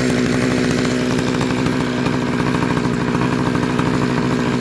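McCulloch Pro Mac 610 chainsaw's single-cylinder two-stroke engine running at a steady speed.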